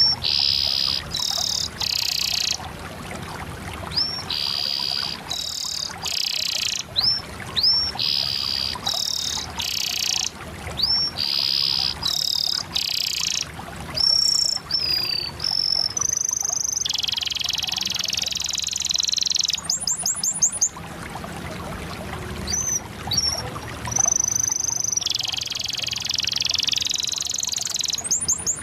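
A canary singing a long, continuous song. Buzzy chattering phrases alternate with short rising whistles, and a fast rattling trill comes about two-thirds of the way through.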